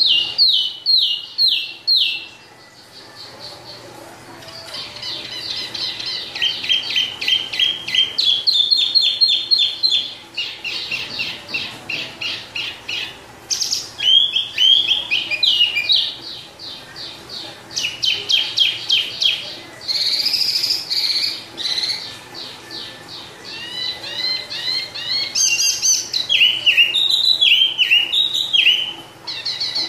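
A caged wambi, a small brown songbird, singing long rolling runs of quick, sharp repeated notes, phrase after phrase, with a pause of about two seconds near the start.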